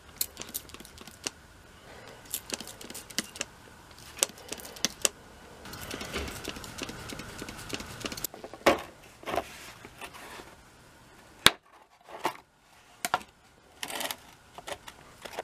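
Hand work on a rusty steel fireplace frame: scattered clicks of a plastic spray bottle spritzing liquid onto a rusted bracket, with a short hiss of spray about six seconds in. A few sharp knocks follow, and near the end clicks and rattles from a plastic tool case holding an impact driver being handled.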